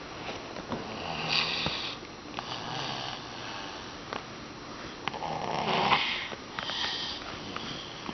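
Sleeper snoring: about four slow, rasping breaths in a row.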